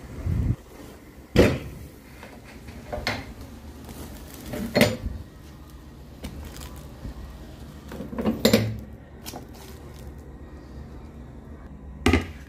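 Kitchenware being handled: about six separate sharp knocks and clatters a second or two apart over a low steady hum, the last near the end as a plastic bowl is set down on a stone counter.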